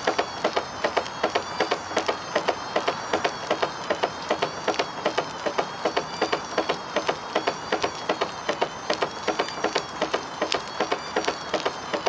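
Bosch washing machine drum spinning with a brick inside, knocking evenly about four times a second. A high whine over the knocks wavers up and down.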